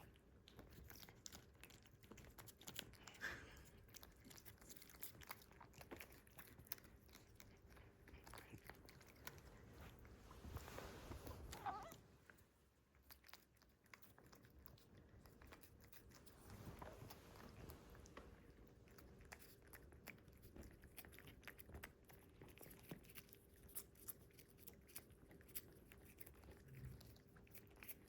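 Cats licking a liquid treat: faint, rapid wet clicks and smacks of tongues lapping, with a louder stretch about eleven seconds in.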